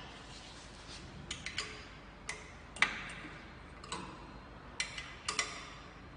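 Metal parts of a manual screen printing press clicking and knocking as the screen and its clamps are handled and set flat: about ten sharp, irregular clicks, some in quick pairs.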